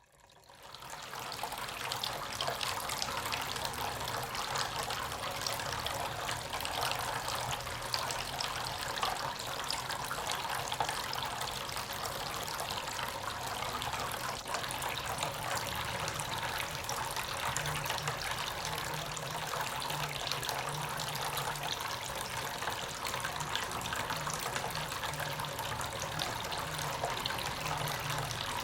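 Water trickling steadily down a small tabletop fountain fed by a 5-watt submersible pump, fading in about a second in, with a faint low hum underneath.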